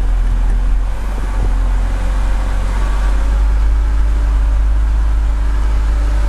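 BMW N52 inline-six engine idling unsteadily, its speed wandering up and down, right after a hard start. It is an unstable idle from the fault behind codes 2E94 and P1717, which also brings up a transmission malfunction warning.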